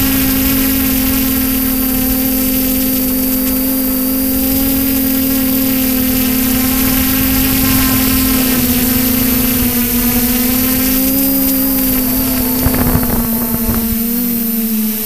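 Multirotor drone's electric motors and propellers running with a steady hum, heard up close from its own onboard camera. A short burst of rough, gusty noise comes about 13 seconds in, and the pitch dips slightly near the end.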